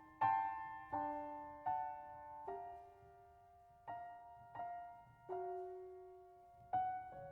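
Background music: a soft solo piano playing single sustained notes, each struck and left to fade, about one every three-quarters of a second, as the intro to a gentle pop song.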